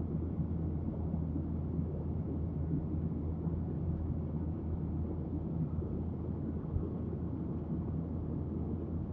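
Steady low rumble of a Boeing jet airliner's engines and airflow, heard inside the cabin during the climb after takeoff.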